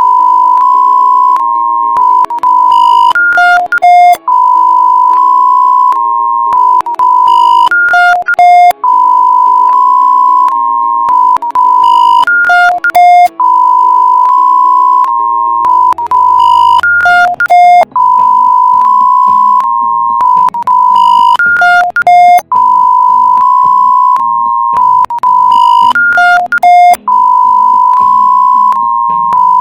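Synthesized emergency alert (EAS-style) alarm: a long, loud electronic tone near 1 kHz that steps slightly in pitch, then a quick run of short higher and lower beeps. The pattern repeats about every four and a half seconds, over fainter low tones.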